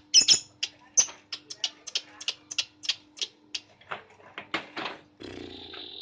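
Lovebird giving a quick series of short, sharp chirps, about three a second, the loudest near the start. About five seconds in, a steady high buzz, like crickets, comes in.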